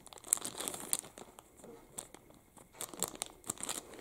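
Clear plastic zip-lock bag crinkling as it is handled, with irregular soft crackles and small clicks.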